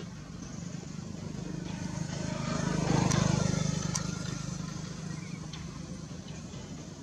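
A motor vehicle's engine passing by, growing louder to a peak about three seconds in and then fading away.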